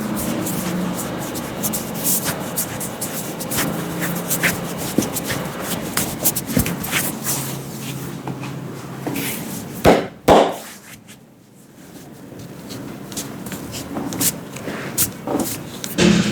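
Hands working an intense head massage: a run of quick taps, slaps and rubs on the scalp and skin, with two much louder sharp strikes close together about ten seconds in.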